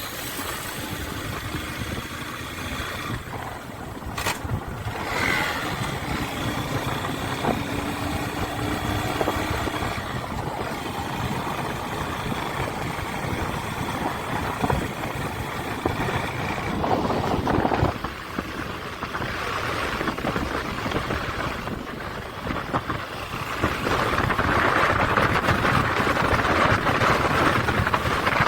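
Motorcycle engine running on the move, mixed with rushing wind and road noise. The sound gets louder in the last few seconds.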